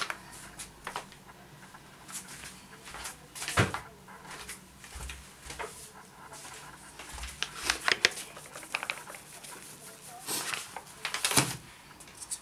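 Scattered knocks and clicks of kitchen things being handled and set down, with a few louder clatters. Near the end a metal sieve of flour is shaken over the work surface.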